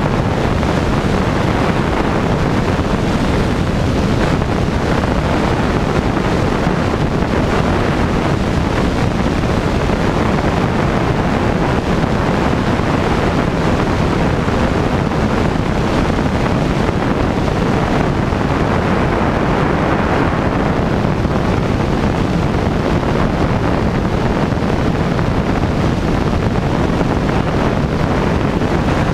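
Single-engine light aircraft in flight: engine and propeller running steadily under a loud, even rush of wind on an outside-mounted camera's microphone.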